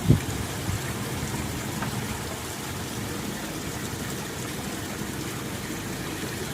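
Water gushing into a canal lock chamber as it fills, a steady rushing noise. A short low bump right at the start is the loudest moment.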